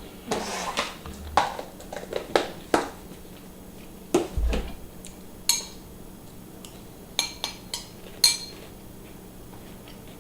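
Spoon and dishes being handled: scattered clinks and knocks, a few of them ringing briefly, with a dull thump about halfway through.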